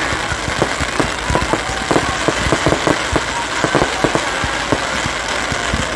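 Fireworks crackling overhead: a dense, irregular stream of sharp pops and cracks from crackling shells over a steady hiss.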